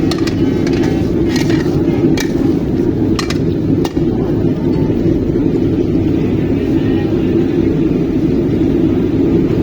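A loud, steady, low rumble with several sharp clicks in the first four seconds.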